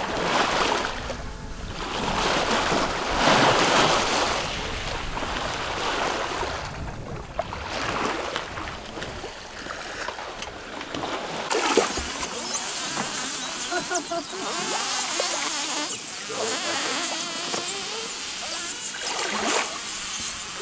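Seawater rushing and splashing along a sailboat's hull, with wind on the microphone. The noise swells and eases as the boat moves through the swell.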